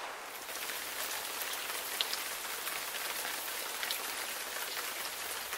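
Water sprinkling from a watering can onto leafy plants: a steady patter of falling drops.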